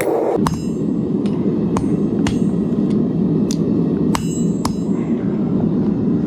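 Hammer blows on hot 1084 high-carbon steel laid on an anvil: about ten sharp, ringing strikes at roughly two a second, rough-forging a knife blank. Underneath them is a steady rush of noise.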